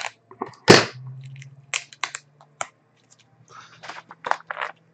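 Scissors snipping through plastic shrink wrap on a card box, with crisp crackles of the wrap. A sharp snap about three-quarters of a second in is the loudest, and a few smaller clicks and crackles follow, with a cluster near the end.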